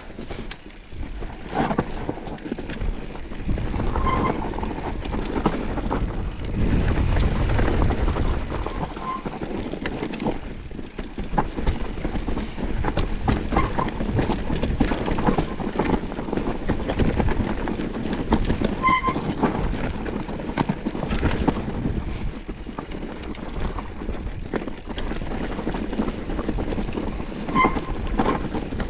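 Mountain bike ridden down a rough, rocky trail: continuous tyre noise and the rattle and clatter of the bike over stones, with a few short high squeaks.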